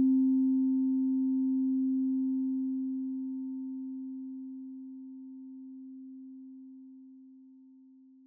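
A meditation bell ringing out after a single strike: one low, steady tone with faint higher overtones, slowly fading away.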